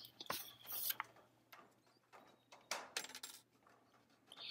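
Offset tin snips cutting sheet-metal apron flashing: a few short, quiet snips spaced out, as the flashing edge is scribed to fit the profile of the corrugated roof sheets.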